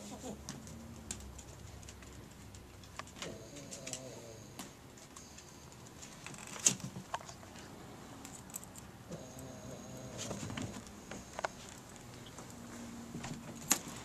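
Cavalier King Charles Spaniel snoring softly in its sleep: about four faint, low, pitched snores a few seconds apart. A few sharp clicks come in between, the loudest about halfway through.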